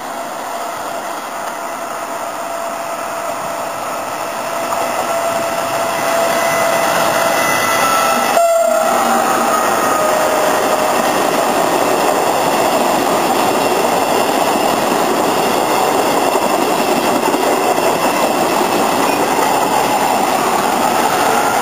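A Trenitalia regional passenger train approaching and rolling past along the platform. The rumble of wheels on track grows over the first six seconds, then holds steady as the coaches go by.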